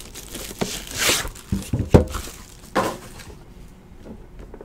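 Plastic shrink wrap crinkling and tearing as it is pulled off a sealed box of trading cards, in a few short rustling swishes with small knocks of the box being handled.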